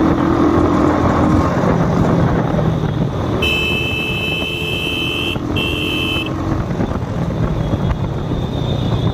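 Motorcycle running along the road with steady engine and road noise. A few seconds in a vehicle horn sounds twice, a long blast and then a short one.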